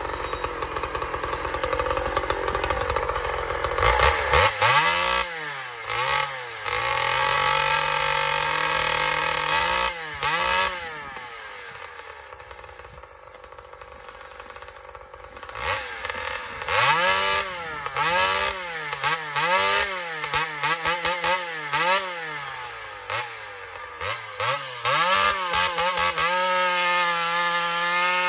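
Homelite chainsaw with its muffler removed, running loud and open: revved in many short throttle blips, with a quieter idling stretch in the middle, while its carburetor is being tuned. Near the end it is held at a steady full throttle as it cuts into a log.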